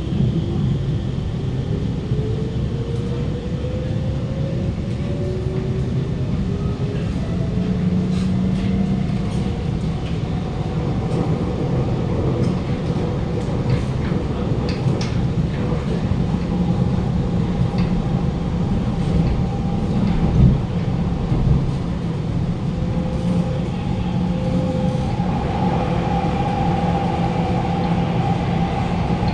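Alstom Movia R151 metro train heard from inside the car, running between stations. The traction motors' whine rises in pitch as the train picks up speed over the first several seconds, then holds steady over a constant rumble of wheels on rail. There is a single thump about twenty seconds in.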